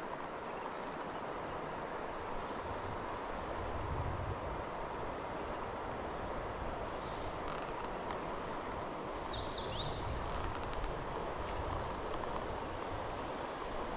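Steady rush of flowing river water, with small birds chirping now and then and a quick run of falling chirps a little past the middle.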